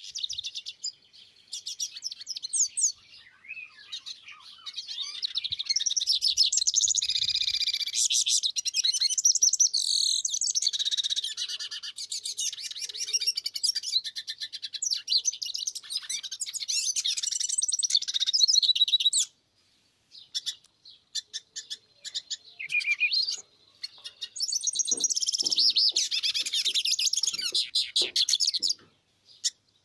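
Caged male hooded siskin (cabecita negra) and a mulo, a canary hybrid, singing against each other in long runs of fast, high twittering, with a few short breaks and one longer pause about two-thirds of the way through.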